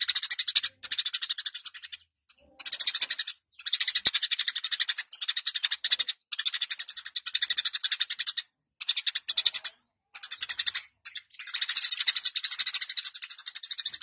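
Eurasian tree sparrow chattering in rapid, buzzy bouts of one to two seconds, with short breaks between them: sustained 'gacor' singing.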